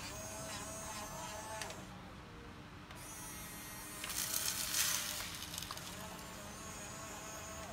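Huina 1550 RC excavator's small electric motors whining steadily as the arm and bucket move. About four seconds in, a louder rattling rush of fine gravel tipped from the bucket into a plastic toy dump truck's bed, lasting just over a second.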